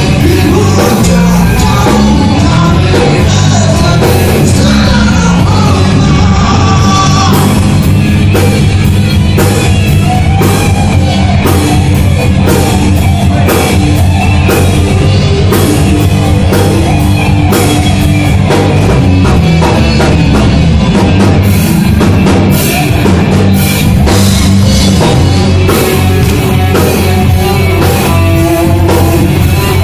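A live rock band playing loudly: electric guitars over a drum kit keeping a steady beat.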